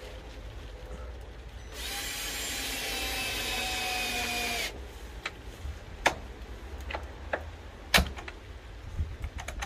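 Power drill running for about three seconds, driving a screw while a replacement door latch is fitted, its pitch sagging slightly before it stops. Several sharp clicks and taps follow.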